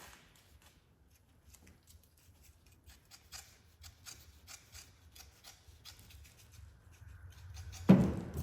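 Scissors snipping irregularly through fiberglass mat, cutting a piece for another layer. A single loud knock comes just before the end.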